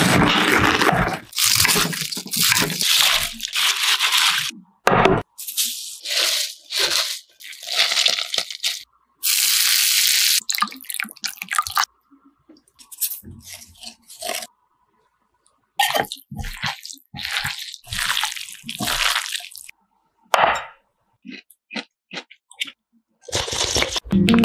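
A run of close-up food-preparation sounds with short gaps between them: crunchy knife cuts through a head of cabbage, and hot oil sizzling as it is poured over chili flakes and sesame seeds.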